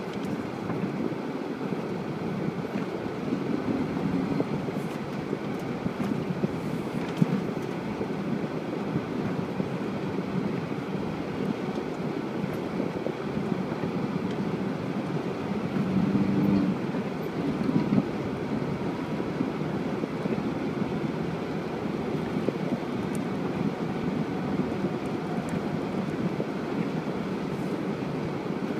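UAZ Patriot SUV driving off-road, its engine and drivetrain running steadily, with brief surges a few seconds in and again about two-thirds of the way through.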